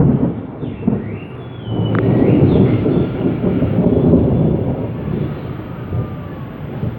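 Rolling thunder: a low rumble that dips about a second in, swells again about two seconds in and slowly fades.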